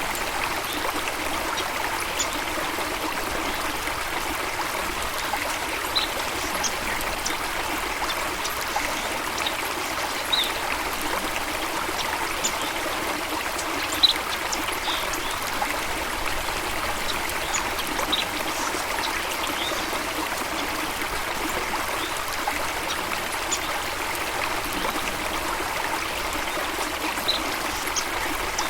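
Steady rush of running water, with brief high bird chirps here and there, the sharpest one a little before halfway.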